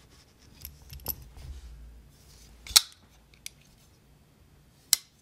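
Small metal clicks of a driver working the pivot screw of a Cultrotech Svarn 3 folding knife, then two loud sharp snaps, about two seconds apart, as the blade is flipped on its pivot washers to test the action after the pivot was loosened.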